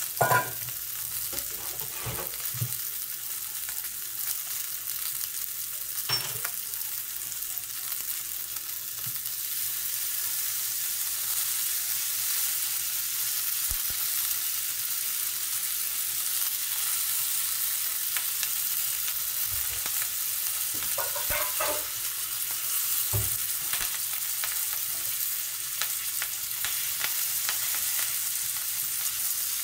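Ribeye steak sizzling in hot fat in a cast-iron skillet, a steady high hiss that grows a little louder about a third of the way in as butter melts into the pan. A few short knocks near the start.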